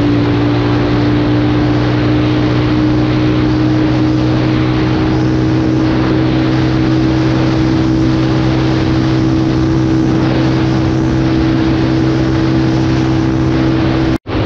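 Motorcycle engine held at a steady cruising speed, an unchanging drone under rushing wind noise. The sound drops out for an instant near the end.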